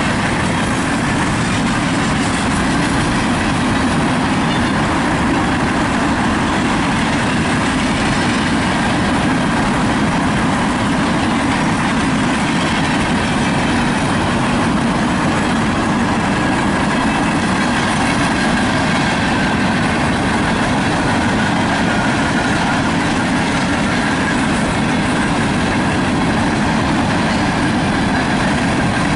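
Freight train's open hopper cars rolling past on steel wheels and rail, a loud, steady noise with no break.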